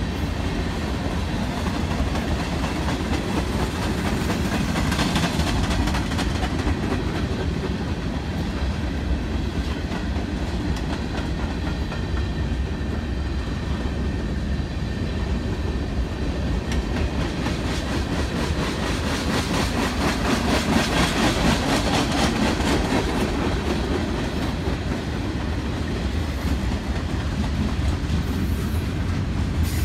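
Freight train cars (tank cars, covered hoppers and boxcars) rolling past close by: a steady rumble of steel wheels on rail with a rhythmic clickety-clack, a little louder about two-thirds of the way through.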